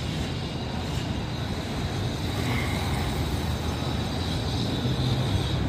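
Street traffic: passing motor vehicles make a steady low rumble, with one engine's hum growing louder near the end.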